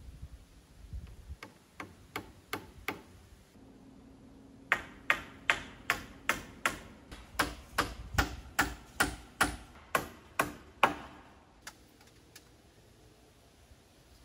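Hammer nailing into the wooden roof trusses: a few light taps to set a nail, then a steady run of about sixteen hard, ringing blows, roughly two and a half a second, for some six seconds.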